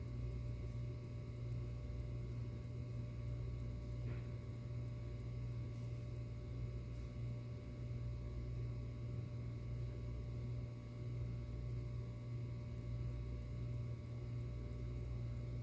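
Steady low hum with a few faint, steady higher tones above it; nothing else stands out.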